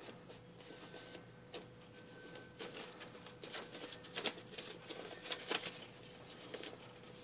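A printed paper sheet being folded along its creases into a small booklet: quiet, irregular rustling and crackling of paper, with a few sharper crinkles in the middle.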